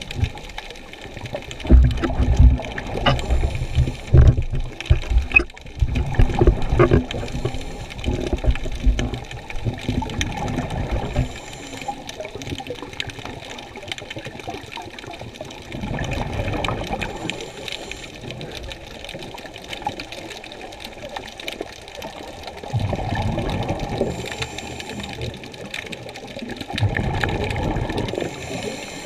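Muffled water sounds picked up underwater by a camera in a waterproof housing: irregular low thumps and swishes for the first ten seconds or so, then a steadier hiss with slow surges of rushing water every few seconds.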